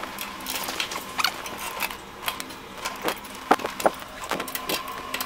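Irregular metallic clicks and taps from an Allen key working the screws of a flat knitting machine's metal side support, loosening them so the support can be raised.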